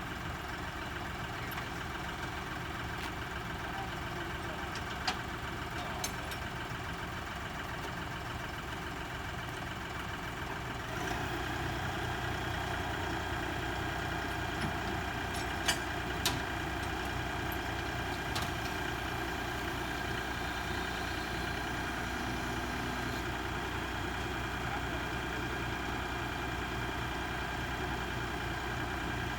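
Engine idling steadily, getting louder and fuller about eleven seconds in, with a few short clicks and knocks over it.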